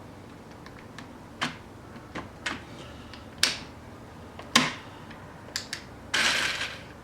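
Hard plastic parts of a paintball box-magazine loader being handled and clicked together: scattered sharp clicks and knocks, the loudest about four and a half seconds in, then a short scraping rustle near the end.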